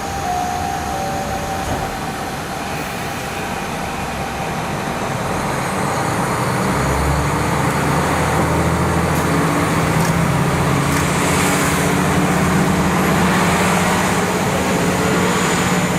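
KiHa 40 diesel railcar under way, heard through a fully open window: a steady rush of running noise, with the diesel engine's drone growing stronger from about six seconds in.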